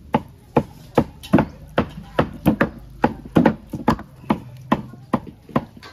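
A knife chopping raw pork on a cutting board, mincing the meat for a raw pork salad. The sharp strikes come steadily, about two to three a second.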